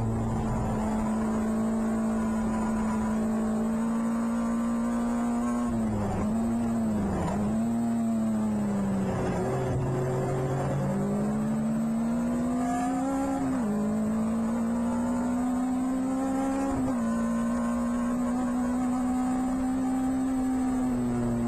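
Onboard sound of a PRB Clubman Seven-style race car's engine at racing revs, with wind and road noise. The revs dip briefly twice about six and seven seconds in, fall low through a corner around nine to ten seconds, then climb steadily with sharp drops at upshifts about thirteen and a half and seventeen seconds in.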